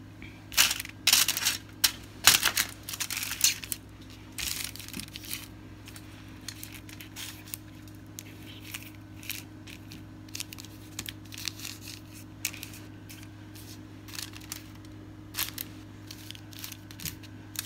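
Fingers breaking apart and spreading crumbly homemade starch chunks on aluminium foil: irregular crinkling of the foil and crunching of the dry lumps, loudest and densest in the first few seconds, then lighter and sparser. A steady low hum runs underneath.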